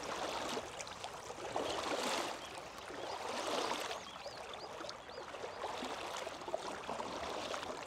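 Shallow stream water swishing and trickling, swelling and easing every second or two, with a few faint high chirps about halfway through.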